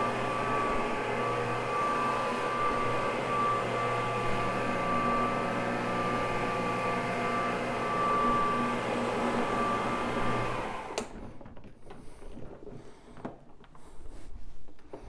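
Electric rotary carpet-scrubbing machine with a soft brush running steadily with a motor hum and whine, then switched off about 11 seconds in, followed by light handling knocks and rustles.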